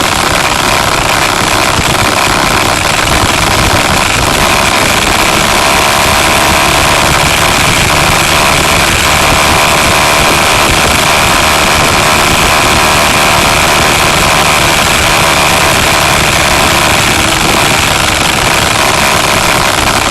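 A vehicle's engine running steadily under loud road and wind noise, heard on board while driving along a road.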